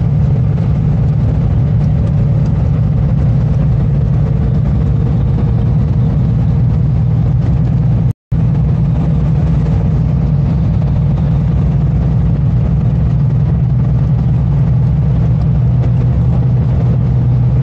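Steady engine and road noise heard from inside a moving vehicle, a low hum with tyre rumble. It cuts out for a split second about eight seconds in.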